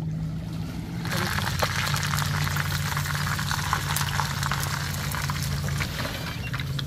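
Whole fish frying in hot oil in a pan, a dense crackling sizzle that starts about a second in, over a steady low hum.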